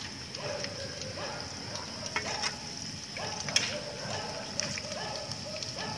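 Light clicks and scraping of a utensil in a metal mess tin over a small wood gas stove, with a steady high-pitched insect trill and short rising animal calls repeating about once a second behind it.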